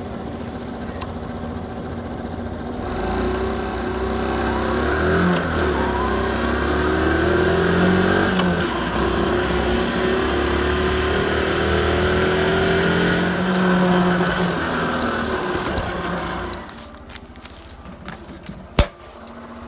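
Small delivery motorbike engine running under way, its pitch rising and falling with the throttle. It falls away about three seconds before the end, then a single sharp click follows near the end.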